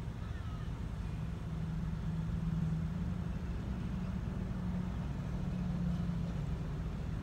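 Car engine idling, a steady low hum heard from inside the cabin while the car sits still in a queue.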